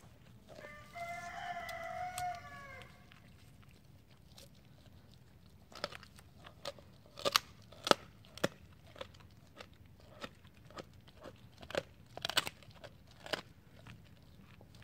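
A Doberman crunching the bones of a raw deer spine: sharp, irregular cracks start about six seconds in. Before the crunching, a long pitched animal call lasts about two seconds.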